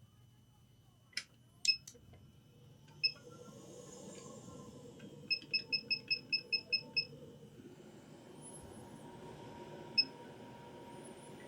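Hot-air rework station starting up: a couple of clicks, then short electronic beeps, one, then a quick run of nine, then one more, as its settings are stepped. Under the beeps the steady hiss of its blowing air builds and holds.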